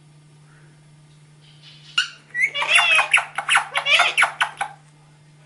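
Pet parrot chattering: about two seconds in, a rapid run of short, shrill, pitch-bending calls for nearly three seconds, then stopping.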